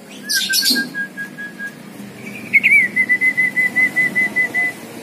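Javan myna (jalak kebo) whistling: a short harsh rasp, then a long steady whistled note, then a quick run of short repeated whistle notes at a slightly higher pitch.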